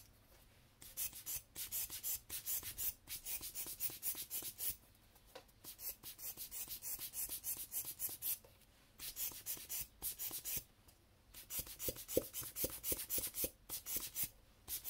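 A hand-squeezed bulb air blower puffing air in quick hissing bursts, several a second, in runs with short pauses, as it blows wet alcohol ink across slick Yupo paper.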